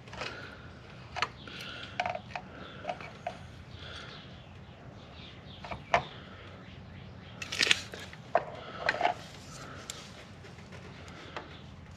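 Seam sealer being squeezed from its tube and applied by hand, with scattered sharp clicks and brief handling noises.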